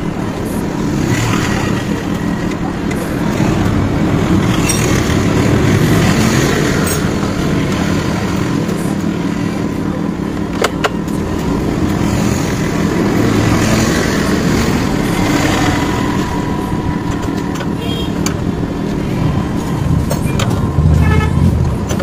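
Steady motor vehicle noise that swells and fades several times, with one sharp click about ten and a half seconds in.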